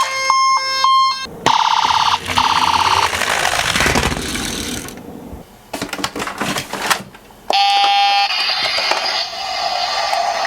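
Electronic sound effects from a toy minicar's speaker: rapid on-off beeping for about a second, then a buzzing electronic tone. About three-quarters in comes another short tone. Between and after the tones are stretches of noise and clicks.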